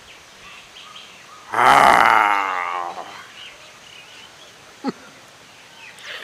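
A man's loud, drawn-out vocal sound that starts suddenly about one and a half seconds in and slowly falls in pitch over about a second and a half. Birds chirp faintly in the background.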